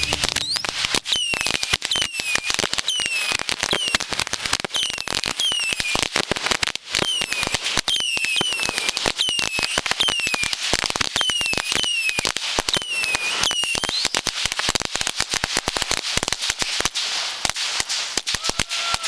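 Consumer crackling firework fountain spraying a dense, rapid stream of small sharp pops, with short falling whistles repeating about twice a second. The crackle thins out slightly near the end.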